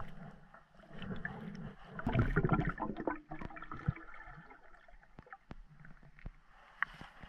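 Muffled underwater water gurgling and bubbling, with scattered small clicks throughout; the gurgling is loudest for about a second, roughly two seconds in.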